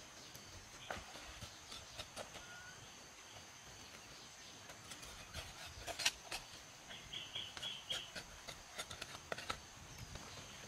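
Knife cutting through grilled beef ribs: irregular clicks and scrapes of the blade on bone, the sharpest about six seconds in. A steady high-pitched tone runs underneath, and a short chirping call comes about seven seconds in.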